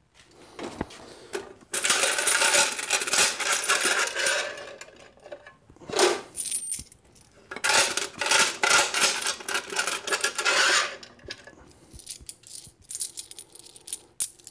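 Quarters clinking and jingling as handfuls are scooped out of a coin-op toy vending machine's coin compartment. There are two long spells of dense clattering with a short one between them, then scattered lighter clinks near the end.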